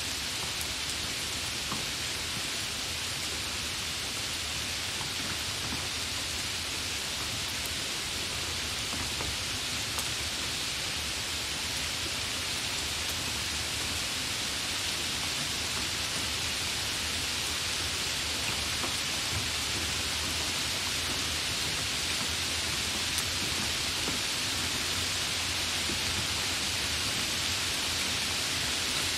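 Steady rain falling: an even, continuous hiss with the odd faint drop tick.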